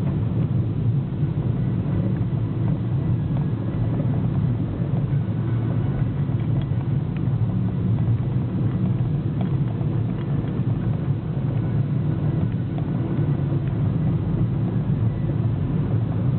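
Car driving steadily along a paved road, its engine and tyre noise heard from inside the cabin as an even low hum.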